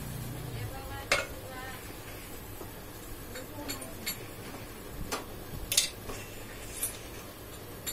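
Scattered sharp metallic clicks, clinks and knocks as the handwheel of a vertical boring machine is worked by hand, the loudest about a second in. A low hum stops within the first second.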